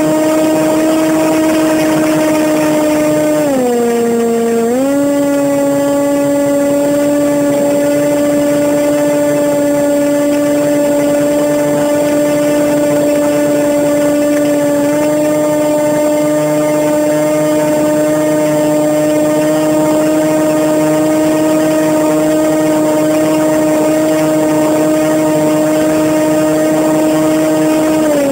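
Zagi RC flying wing's motor and propeller, heard from a phone riding on board, running at a steady high-pitched drone. The pitch dips for about a second some three and a half seconds in, then comes back up, and starts falling again at the very end. A steady hiss of wind noise lies under it.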